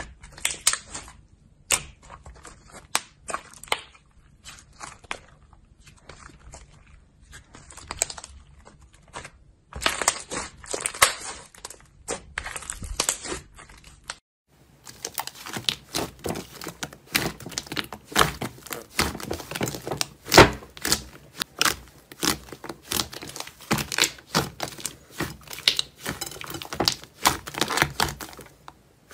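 Hands squeezing, stretching and kneading slime, giving a string of sharp wet pops and crackling clicks. The clicks come sparsely at first, then after a short break about halfway through they pack densely together.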